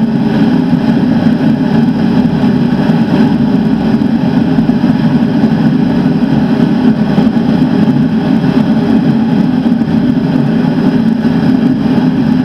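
Forced-air shop heater running steadily: a loud, even blowing noise with a low hum.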